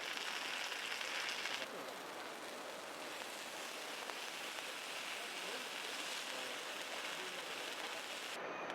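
Meat sizzling on a thick iron griddle over a wood fire: a steady hiss that drops a little quieter about a second and a half in.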